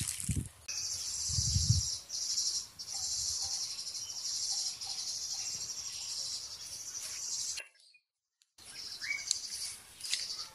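Insects in the trees keep up a steady, high drone. There are a couple of low thuds in the first two seconds. The sound cuts out to silence for about a second near the end, then comes back with a few short bird chirps.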